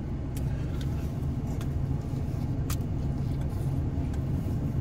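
Steady low hum of a car heard from inside its cabin, with a few faint clicks.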